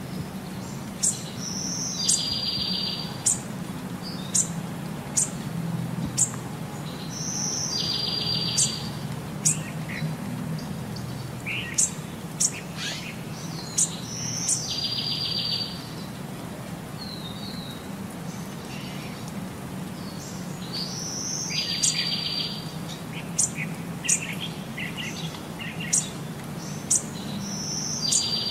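Eurasian eagle-owl giving a raspy, hiss-like call about a second long, repeated roughly every six to seven seconds, five times in all, with sharp short clicks scattered between the calls.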